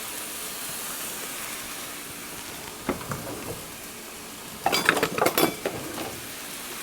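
Ground chicken sizzling in sesame oil in a hot pan as it starts to brown. A spoon clinks and scrapes against the pan, with a few knocks about three seconds in and a quick cluster of clatter around five seconds.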